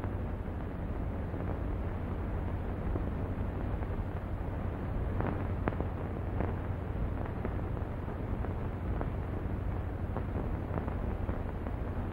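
Steady hiss and low hum of an old 1930s optical film soundtrack with no dialogue, broken by a few faint clicks about five to six seconds in.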